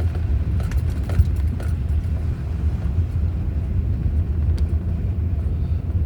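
Steady low rumble of a four-wheel-drive vehicle driving on a snow-covered road, heard from inside the cab, with a few light clicks about a second in.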